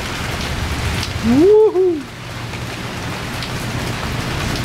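Steady rain from a thunderstorm downpour. About a second and a half in comes a brief two-note hum from a person, the loudest sound here.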